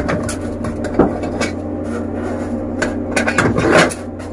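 Metal clicks and clinks of a chained steel locking pin being fitted into the slot of a free-fall lifeboat's stainless-steel hook-release handle bracket, securing the release handle; a few sharp knocks, with a cluster about three and a half seconds in, over a steady low hum.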